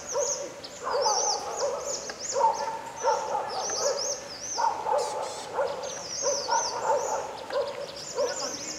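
Wild birds calling in a chorus. Quick, high arched chirping notes repeat through the whole stretch, under a lower hooting call that comes in short phrases about every one and a half seconds.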